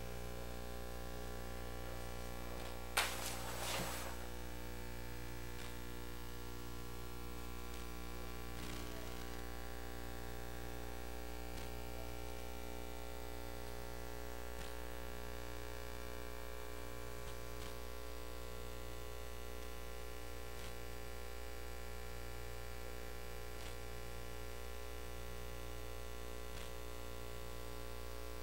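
Steady electrical mains hum with a stack of overtones on the recording, with a short burst of noise about three seconds in.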